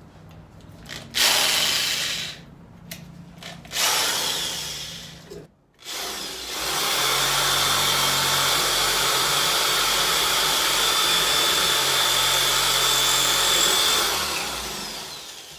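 Corded electric drill boring into brick with a masonry bit: two short bursts in the first few seconds, then a long steady run with a constant whine, winding down near the end.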